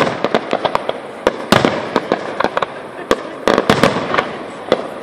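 Aerial firework shells bursting in a rapid, irregular barrage of sharp bangs over a crackling haze, with dense clusters about a second and a half and three and a half seconds in.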